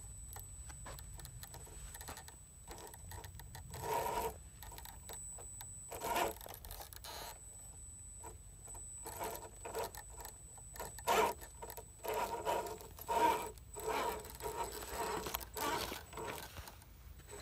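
Radio-controlled rock crawler's electric motor and geared drivetrain whining in short bursts of throttle as it climbs a rock slab, with its tyres scraping on the rock. The bursts are sparse at first and come thick and fast in the second half.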